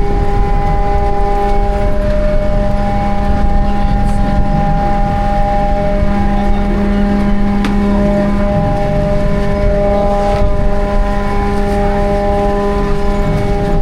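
Ferry engine running steadily: a loud, constant drone with a steady hum that holds one pitch.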